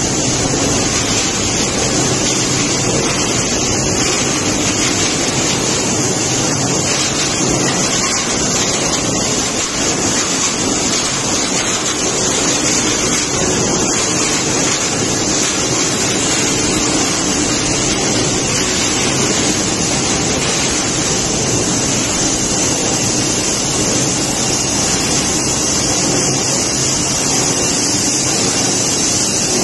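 PET bottle recycling line running: a steady, loud machinery din with a hiss on top and a low hum under it.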